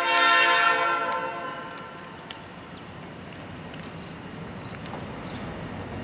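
Diesel locomotive's air horn sounding a chord of several tones, loudest at the start and fading out about two seconds in. After it, the low rumble of the approaching train slowly grows.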